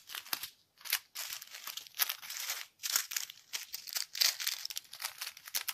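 Small clear plastic bags of diamond-painting drills crinkling and rustling in irregular bursts as they are handled and sorted by hand.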